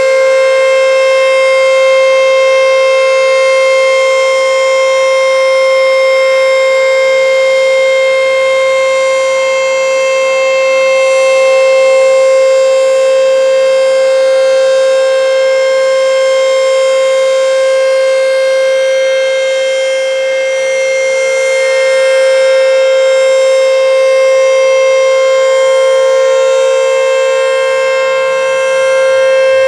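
ACA Screamer S-5 electro-mechanical outdoor warning siren sounding a steady wail at one pitch. Its loudness swells and fades slowly over several seconds.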